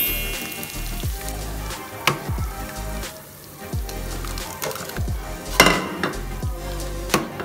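Blended chili paste sizzling in hot oil in a rice cooker's inner pot, with a sharp crack about three quarters of the way through as an egg is broken into it. Background music plays underneath.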